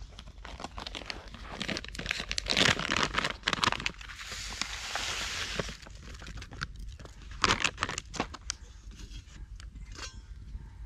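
A plastic bag crinkling as it is handled, then dry porridge oats pouring from it into a plastic bowl with a steady rustling hiss lasting about two seconds. A brief loud crackle follows a little later.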